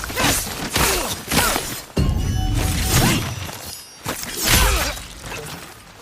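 Katana blades clashing in a rapid series of metal-on-metal strikes, each ringing briefly, the loudest about four and a half seconds in, over background music.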